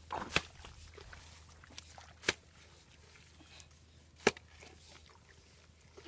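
A hoe blade striking into wet earth and mud: three sharp chops about two seconds apart.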